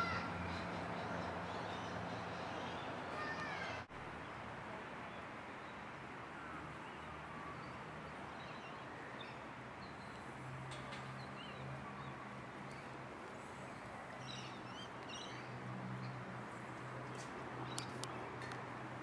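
Outdoor riverside park ambience: a steady hiss with a low hum, a short mewing call in the first few seconds, and a few faint bird chirps later on.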